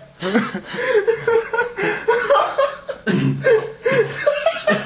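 People laughing and chuckling in short, choppy bursts.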